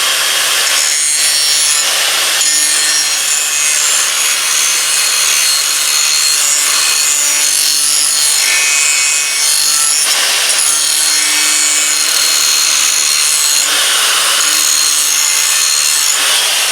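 Power grinder sharpening a steel lawnmower blade: a steady loud grinding with a few brief dips as the blade is eased off the wheel.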